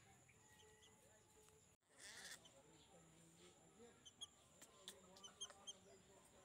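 Near silence: faint outdoor background with a steady high whine and a few short, high chirps in the second half.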